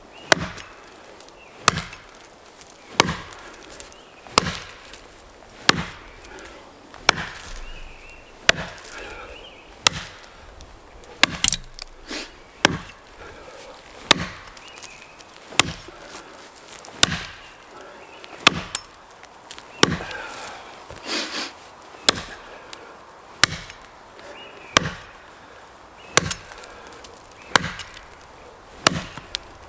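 Rinaldi America No. 4 axe chopping into a pine trunk: a steady rhythm of single strikes about every second and a half, each a sharp crack with a short low thud after it, as the face cut of the felling notch is chopped.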